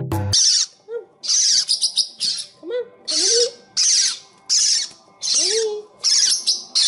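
Young parrotlets giving harsh, raspy begging calls over and over, about one and a half a second, while being hand-fed.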